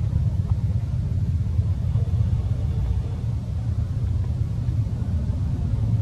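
A steady low rumble with a flickering level and no clear pitch.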